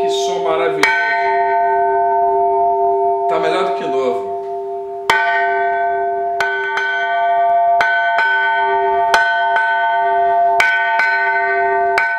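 Church bell being struck for a sound test after its crack was repaired with adhesive. It is hit about eleven times in an uneven rhythm, often two strikes close together. Each strike rings out with a long, steady tone that carries on under the next.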